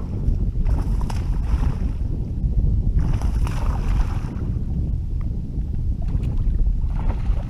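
Wind buffeting the microphone, a steady low rumble, with three short hissing swells about a second in, around three seconds in, and near the end.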